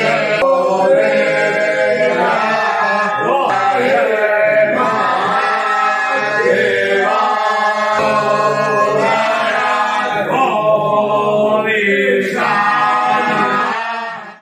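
Group of men chanting Sanskrit mantras together in a sustained, melodic unison; the chant cuts off abruptly just before the end.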